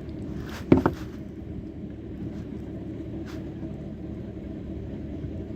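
A sharp knock, two hits in quick succession, about a second in, over a steady low rumble.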